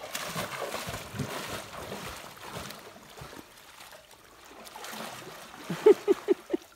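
River water sloshing and splashing around a person's legs as they wade through knee-deep water in chest waders, loudest in the first few seconds. A few short, sharp sounds come close together near the end.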